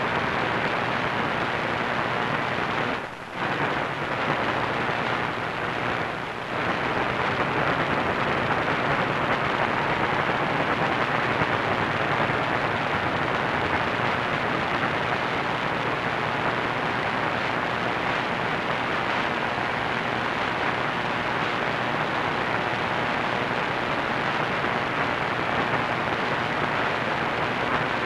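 AM radio receiver tuned to 1490 kHz giving a steady rushing static hiss, with no programme audible above it: the distant station's signal has faded into the noise. The hiss briefly drops twice, about three and six seconds in.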